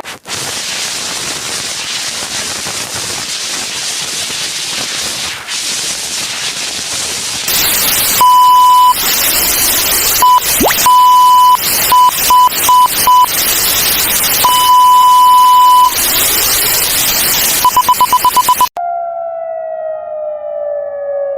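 Loud static hiss, then a high electronic beep over the static, sounding in long and short tones and ending in a quick run of pips. The static cuts off suddenly near the end and a siren starts, its tone falling slowly in pitch.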